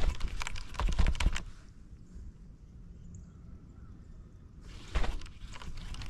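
Rapid clattering clicks and knocks in two bursts: about a second and a half at the start, and a shorter burst about five seconds in.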